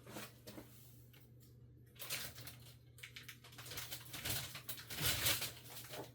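Paper rustling and handling noises, irregular and loudest a little over halfway through, over a low steady hum.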